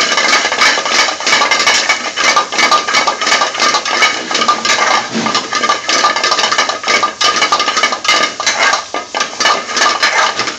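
Metal spoon scraping and clattering rapidly and continuously against an aluminium frying pan while stir-frying paneer cubes with onion and green chilli. It stops abruptly at the end.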